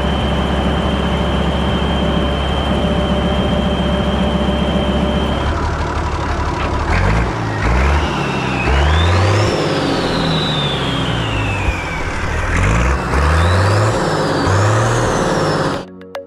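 Turbocharged Massey Ferguson 95X tractor diesel running, first holding a steady idle with a high whine. From about five seconds in it is revved up and down several times, the turbo's whistle rising and falling with the revs.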